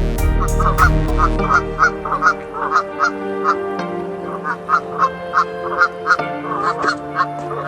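A flock of waterfowl calling in quick short calls, about three a second, over a bed of sustained background notes that shift in pitch now and then.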